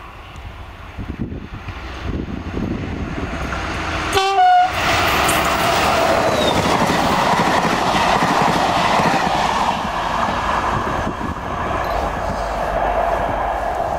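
Diesel-hauled passenger train of Corail coaches: a short horn blast about four seconds in as the locomotive nears, then the locomotive and coaches passing close by, wheels rumbling and clattering on the rails.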